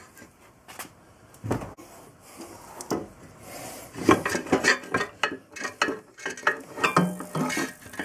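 BMW R1100RT swinging arm being worked loose and pulled out by hand: irregular metal clinks, knocks and scrapes, with a heavier knock about one and a half seconds in and a busy run of clinks from about four seconds.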